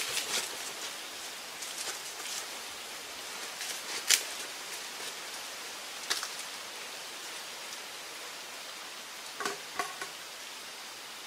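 Steady hiss of outdoor forest ambience with a few scattered sharp clicks, the loudest about four seconds in and a quick pair near the end.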